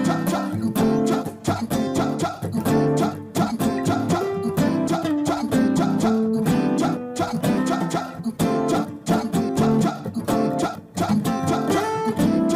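Background music led by a strummed acoustic guitar, with a steady beat.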